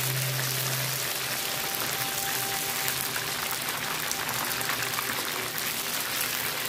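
Battered fish cubes deep-frying in hot oil: a steady, dense sizzle of crackles.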